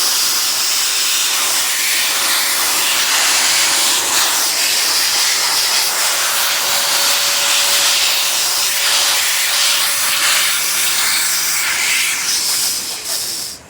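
Electric keyboard blower running, a loud steady rush of air with a faint steady whine, blowing dry dust and debris out of a typewriter's mechanism. It cuts off near the end.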